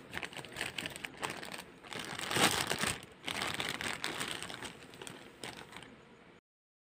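Clear plastic wrapping crinkling and rustling as hands pull it open and off a figure's pieces. The crinkling is loudest about two and a half seconds in and cuts off suddenly near the end.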